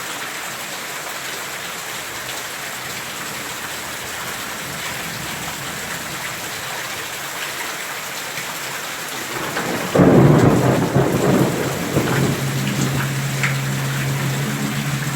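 Steady rain falling, then about ten seconds in a sudden loud crack of thunder that rumbles on for several seconds. A steady low drone joins the rain near the end.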